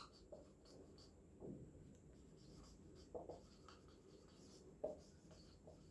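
Whiteboard marker writing on a whiteboard: faint scratching and squeaking of the pen strokes, a few slightly louder than the rest.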